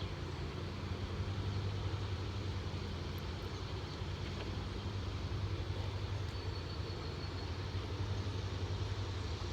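A steady low mechanical hum under a constant rushing noise, with no distinct strikes.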